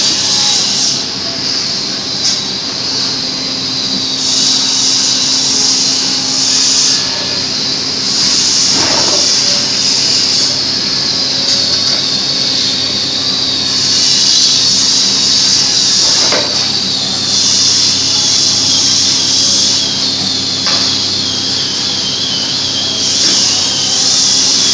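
A steady mechanical hum with a high hiss running underneath, and a few light knocks as plywood boards are handled.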